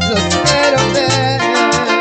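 Live acoustic guitar music: a plucked melody of quick notes over low bass notes changing about twice a second.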